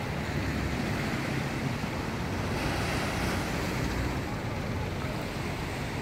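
Small waves washing onto a sandy beach, a steady hiss of surf, with some wind on the microphone.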